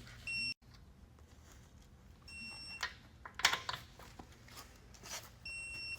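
Three short, high electronic beeps, each about half a second long and a couple of seconds apart, typical of a digital torque wrench signalling that a wheel bolt has reached its set torque. Light clicks and knocks of the wrench and socket come in between.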